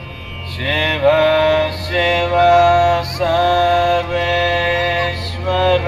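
Devotional chant music: a male voice sings a series of long held notes, sliding into each one, over a steady low drone.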